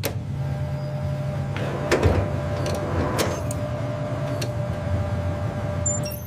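Steady electric machine hum with a thin whine over it and a few sharp clicks.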